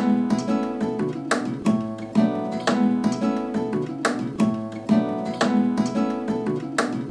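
Instrumental acoustic guitar music, chords strummed in a steady rhythm.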